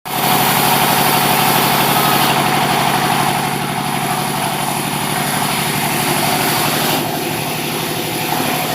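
Sawmill engine running steadily with a fast, even pulse, under a loud hiss that rises and falls a little about two seconds in and again near the end.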